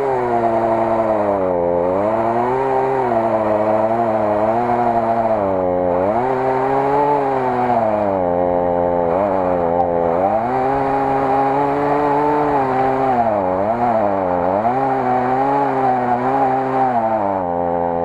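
Two-stroke chainsaw cutting into a tree trunk, its engine pitch repeatedly dropping under load and climbing back as the chain frees up in the wood.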